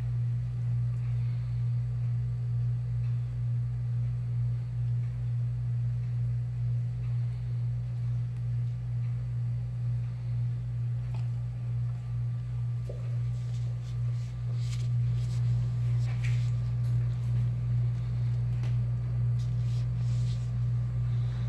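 A steady low electric hum, with a few faint light clicks over it.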